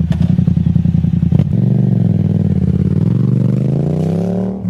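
Yamaha MT-07's parallel-twin engine through an aftermarket Arashi exhaust, running with a lumpy idle beat, then revving slowly upward for a few seconds.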